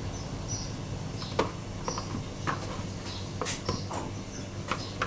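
Holy basil leaves being snapped off their stems by hand and dropped into a pot of water: a scattering of sharp little clicks and rustles at uneven intervals. A low steady hum runs underneath, with short high chirps now and then.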